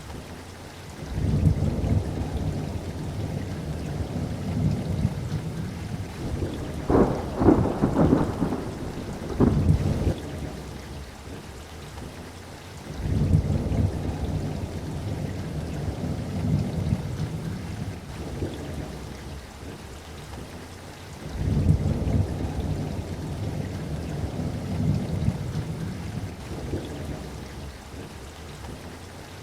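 Steady rain with repeated rolls of thunder. Low rumbles swell in about a second in, near the middle and about two-thirds through, with sharper cracking peals in the first third.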